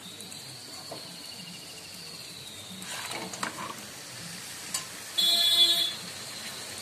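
Raw mutton pieces going into a hot wok of tomato and spice masala, with soft sizzling and a few knocks of a metal spatula against the pan. About five seconds in, a brief loud buzzy tone cuts across it.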